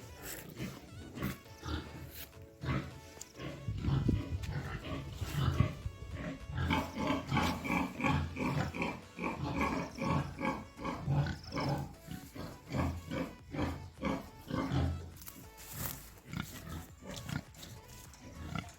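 Pigs grunting in a rapid run of short grunts, busiest through the middle, with music playing underneath.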